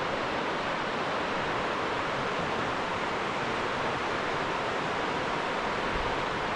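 Steady rush of a river, running high with spring water.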